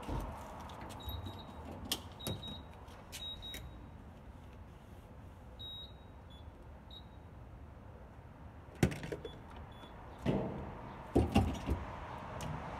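Short high beeps from a gas pump's keypad, about half a dozen in the first seven seconds, mixed with light button clicks. Then a few loud clunks and rattling clicks near the end as the fuel nozzle and the van's fuel cap are handled.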